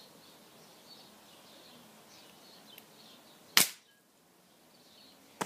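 Air rifle firing a single shot: one sharp crack about three and a half seconds in, after a near-quiet stretch, with a smaller click right at the end.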